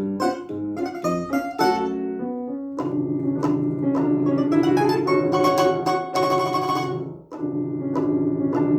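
A plucked string instrument playing a lively children's piece: quick short plucked notes at first, then from about three seconds in, held notes played as a fast tremolo, with a brief break just past seven seconds.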